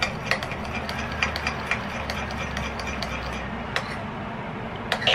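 Metal spoon stirring a thin sauce in a small ceramic bowl, knocking against the bowl in light, irregular clinks and ticks.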